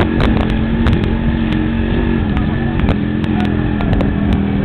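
Yamaha DX 100cc motorcycle engine running steadily under way, a constant drone with a low rumble of road noise and scattered light clicks, heard from on the moving bike.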